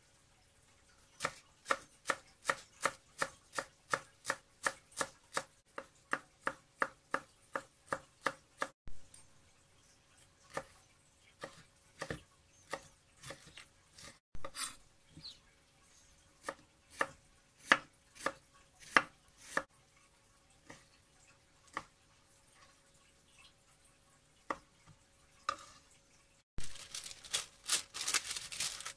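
Kitchen knife chopping on a wooden cutting board: a quick, even run of about two to three cuts a second for the first nine seconds, then slower, irregular cuts through a green bell pepper. Near the end, parchment paper crinkles as it is handled.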